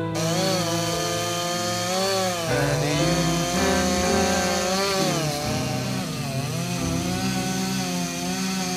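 Two-stroke chainsaw cutting into an oak trunk, the engine note dipping and recovering several times as the chain bites into the wood.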